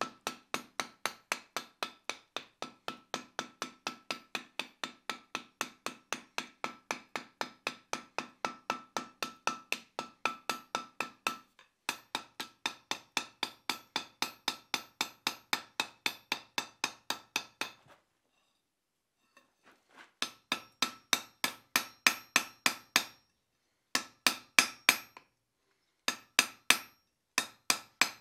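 Hand hammer striking red-hot steel on an anvil, a steady run of about three blows a second with a ringing note, rounding the upset end of a 5/8-inch round bar into a ball. The hammering stops about 18 seconds in, then resumes in shorter runs of blows.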